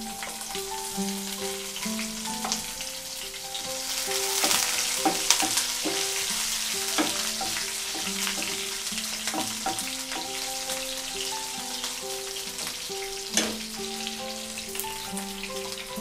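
Green chillies and curry leaves sizzling in hot tempering oil in a frying pan, the sizzle swelling about four seconds in, with the scrape and clicks of a wooden spoon stirring and one sharp knock near the end.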